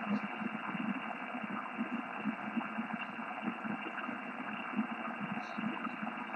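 Yaesu FT-1000MP transceiver's speaker giving out the steady hiss and static of the 11-metre band on upper sideband, with no station coming through. The sound is thin and has no highs, clipped above about 3 kHz by the receiver's filter.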